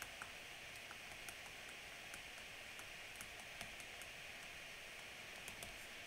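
Faint, irregular small clicks and taps of a stylus writing on a tablet screen, over a steady hiss.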